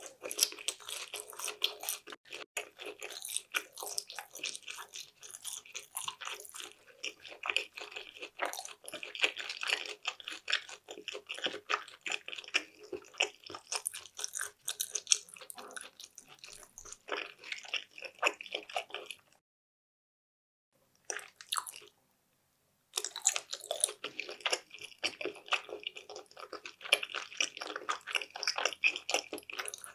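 Close-miked chewing and biting of sushi, a dense run of small mouth clicks and smacks. It breaks off into dead silence for a few seconds about two-thirds of the way through, with one brief burst in the gap, then resumes.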